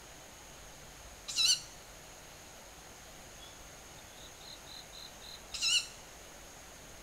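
Two short, hoarse-edged calls about four seconds apart, each wavering in pitch with a stack of overtones, from a fledgling owl that the recordist takes for a young Ural owl. A faint run of about five soft high notes comes just before the second call, over a steady thin high tone.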